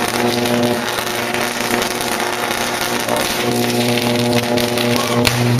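Electrical arc at the top of a utility pole: a loud, harsh buzz over a hiss, a short circuit on the power line. The buzz eases about a second in and comes back stronger after about three and a half seconds, with a few sharp crackles near the end.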